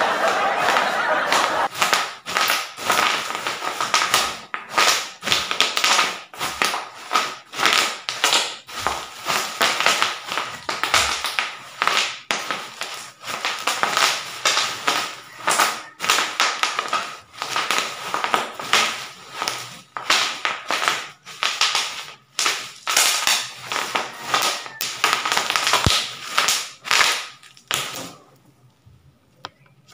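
Bubble wrap popping and crinkling under bare feet trampling it: a dense, irregular run of sharp pops and plastic crackle that stops a couple of seconds before the end.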